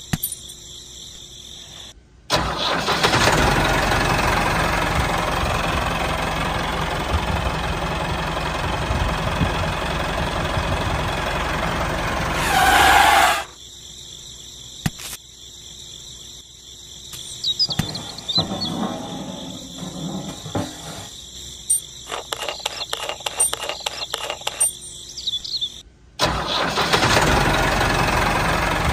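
Engine running steadily in two long stretches: from about two seconds in until a short rising whoosh around thirteen seconds, and again from about twenty-six seconds. Between them, quieter clicks and taps of small plastic parts being handled.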